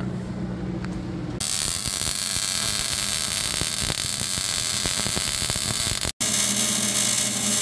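Wire-feed (MIG) welding arc crackling and hissing steadily. It starts about a second and a half in, after a low steady hum, and near the end the hum returns under the crackle.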